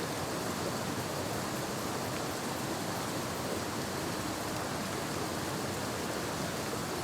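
Steady, even hiss of water outdoors in a freshly flooded creek bottom after a heavy thunderstorm, with no distinct events.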